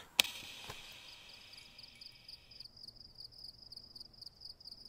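Faint cricket trill, a thin high chirping that pulses evenly, with a single click just after the start.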